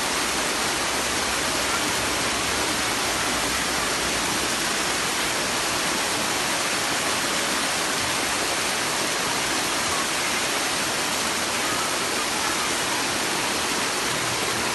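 Waterfall of white water pouring over rocks close by: a steady rushing that does not change.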